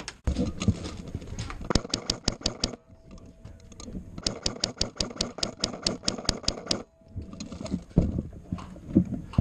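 Airsoft electric gun firing on full-auto in two long bursts of rapid, evenly spaced shots, with a pause of about a second and a half between them.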